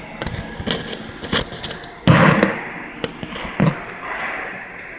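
Handling noise: a string of sharp clicks and knocks, with a louder rustling, scraping burst about two seconds in.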